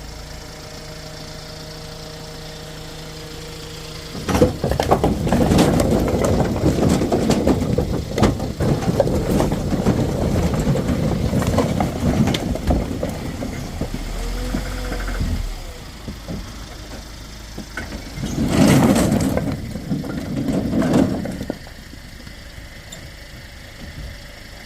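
Truck engine idling steadily, then about four seconds in a loud, irregular rumbling with many knocks and clatters that lasts some eleven seconds, with a second shorter loud stretch near the end.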